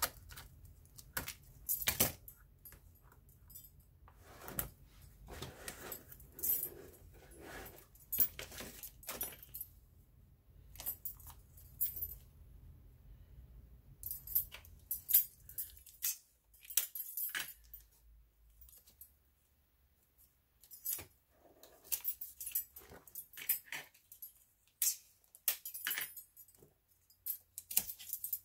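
Stacked metal bangle bracelets clinking and jangling on a wrist as hands handle, fold and press cardboard, with scissors snipping near the start; irregular clicks and rustles throughout.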